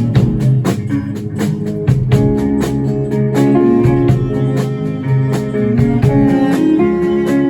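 Live rock band playing an instrumental passage: guitar over bass and a steady drum beat.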